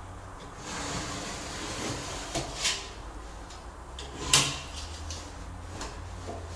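Hands-on floor-installation work: a rustling, scraping stretch, then a few sharp knocks. The loudest knock comes about four seconds in.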